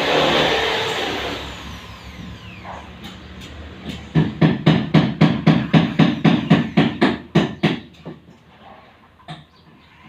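A passing vehicle fades away over the first two seconds. About four seconds in comes a fast, even run of hammer blows, about four to five a second, lasting nearly four seconds, with a couple more near the end.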